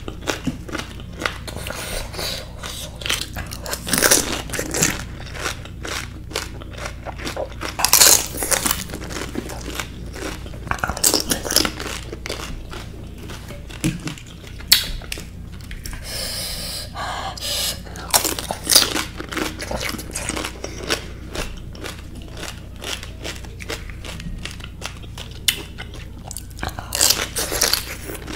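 Crunching and chewing of pani puri with raw green chillies: crisp puri shells cracking between the teeth, with louder crunches every few seconds.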